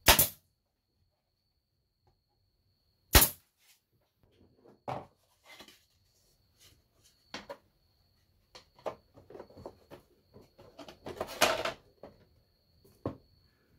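A nail gun fires two sharp shots into wood, one right away and the second about three seconds later. Then pallet-wood boards are handled and laid into a wooden door frame, making light, scattered wood knocks and clatter that are busiest near the end.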